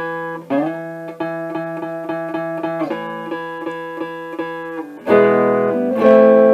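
Electric guitar played through a valve (tube) instrument amplifier fitted with new power tubes: a chord picked about three times a second, then two loud chords near the end left ringing. The tone is clear and crisp, with no microphonic ringing or chatter from the tubes.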